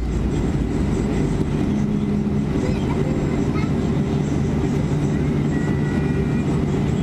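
Boeing 737-400 cabin noise with its CFM56-3 turbofan engines running at idle: a steady low rumble and hum heard from inside the passenger cabin.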